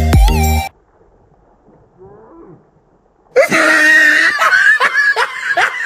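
Loud laughter starting about three and a half seconds in: a run of falling 'ha' sounds, two or three a second. Before it, a moment of electronic music cuts off suddenly, leaving a short near-silent gap.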